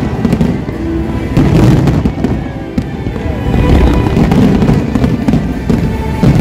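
Fireworks display: firework shells bursting in a run of deep booms and sharp cracks every second or so, with show music playing underneath.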